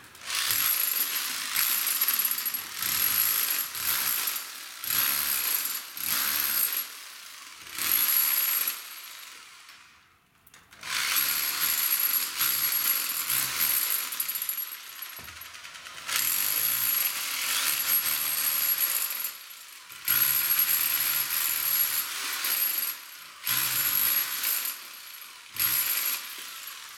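Rotary hammer with a spade chisel bit chipping a cable channel into a concrete ceiling, running in bursts of one to four seconds with short pauses and a longer stop about ten seconds in. Chipped concrete rattles into a plastic bucket held under the bit.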